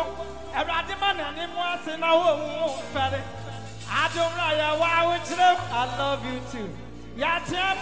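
Live gospel worship music: a male singer sings into a microphone over a band with keyboard and steady low bass notes that change every second or two.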